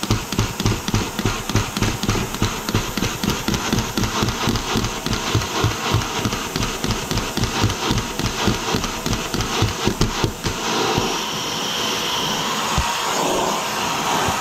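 Lego plastic DOHC model engine running under throttle, its plastic parts clattering in an even rhythm of about three to four knocks a second. About ten seconds in the knocking stops and a steady hiss is left.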